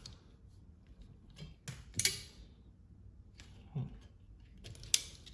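Scattered clicks and taps from a windshield wiper blade and its plastic parts being handled, the loudest about two seconds in.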